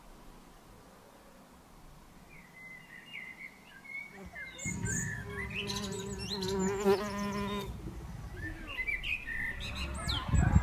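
A mason bee buzzing in flight: a steady low hum that starts about five seconds in and lasts about three seconds. Small birds chirp in the background, with a fast high trill during the buzz.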